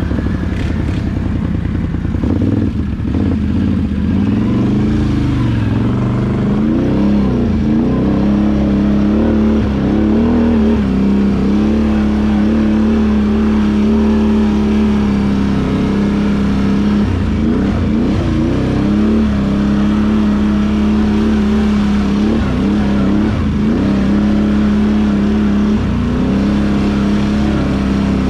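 ATV engine running under throttle, heard from the saddle: mostly a steady drone, with the pitch dipping and climbing back several times as the throttle is eased and opened over the rough, muddy trail.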